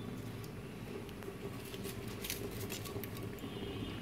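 Quiet kitchen background: a low steady hum with scattered faint light ticks and pops.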